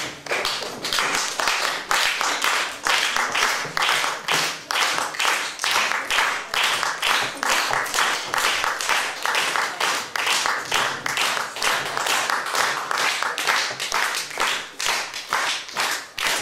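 Audience applauding, the clapping falling into a steady, even rhythm.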